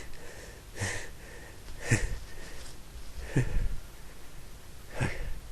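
A man sniffing sharply through his nose during a sneezing fit: four short sniffs spaced a second or more apart.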